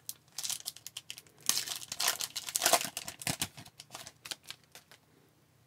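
Foil trading-card pack wrapper being torn open and crinkled by hand, with the stack of cards pulled out of it: a dense run of irregular crackles and rustles.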